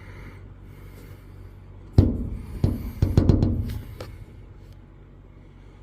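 A quick cluster of sharp knocks and rattles, the first and loudest about two seconds in and the rest dying away by about four seconds.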